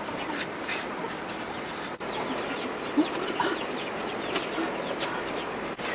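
A cleaver peeling palm fruit, its blade scraping and snicking through the skin in many short, quick strokes, with birds calling in the background.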